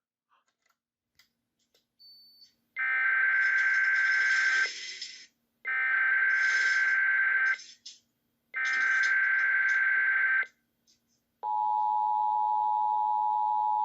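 Emergency Alert System data tones: three identical two-second bursts of SAME header warble, about a second apart, after a short silence. About eleven seconds in, the steady two-tone attention signal starts. The header encodes a Required Monthly Test issued by the National Weather Service.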